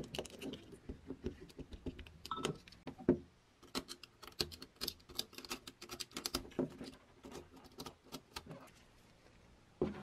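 Quick clicks, taps and light scrapes of a small hand tool working against a glass container, picking off loose chipped pieces of glass. There is a single knock about three seconds in and another near the end.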